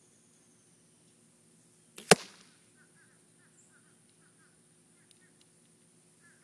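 Arrow striking a block archery target: a single sharp thwack about two seconds in.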